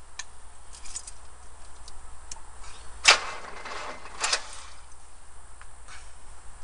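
A few scattered clicks and knocks, the loudest a sharp knock about three seconds in and another about a second later, with no engine running.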